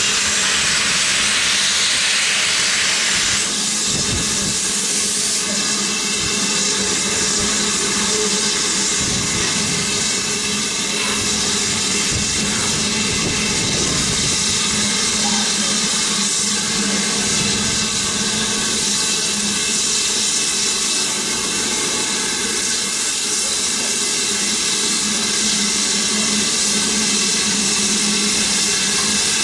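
BR Standard class 9F steam locomotive moving slowly, its open cylinder drain cocks hissing loudly for the first three seconds or so, then a steady hiss of steam as it draws closer.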